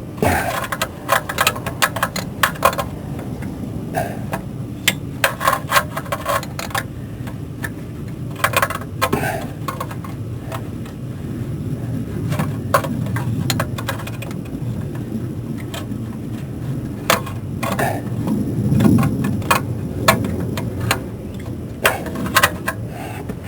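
Metal hand tools clicking and clinking in short bursts of rapid clicks, with pauses between, over a steady low rumble.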